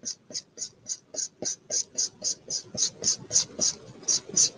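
Felt-tip marker scribbling fast on a paper coffee filter: rapid scratchy strokes, about four a second, growing louder in the second half.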